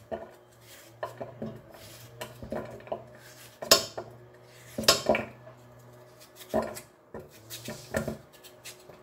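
Kitchen knife cutting pieces off a raw potato held in the hand, the pieces clinking as they drop into a stainless steel pot. An irregular string of sharp clicks and knocks, loudest about four and five seconds in.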